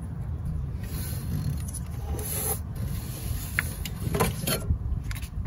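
Hands handling a plastic wiring connector in an engine bay: light rubbing and a few scattered clicks, over a steady low rumble.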